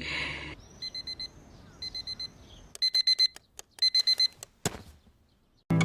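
Digital alarm clock beeping in quick groups of four, one group about every second, growing louder after the first two groups; a single click follows near the end.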